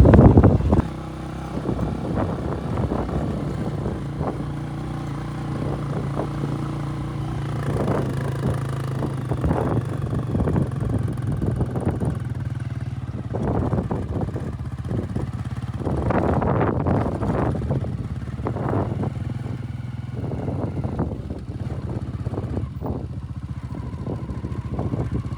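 Motorcycle engine running steadily while riding along a bumpy dirt track, with jolts and rattles scattered through.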